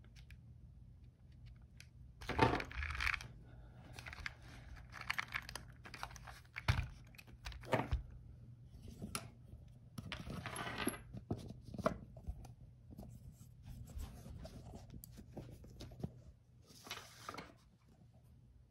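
Hands fitting a plastic idler gear into a Kyosho Raider RC car's open plastic gearbox: scattered light clicks and rattles of small plastic gears and parts, with short scratchy bursts of handling noise, the loudest about two and a half seconds in, around ten seconds in and near the end.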